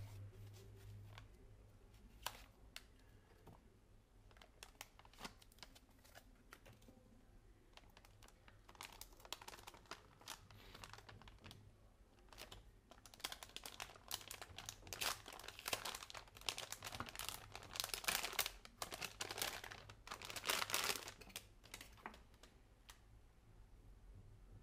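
Anti-static shielding bag crinkling and rustling as it is handled and opened. It is only scattered light taps and clicks at first, then comes in dense crackly bursts from about a third of the way in, heaviest in the second half.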